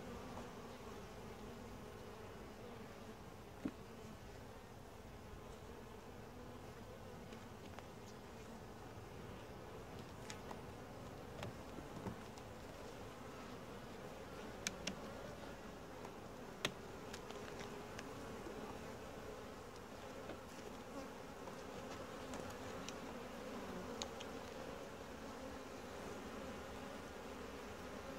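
Steady hum of a calm honey bee colony at an open hive, with a few sharp clicks and knocks scattered through as the wooden frames are handled.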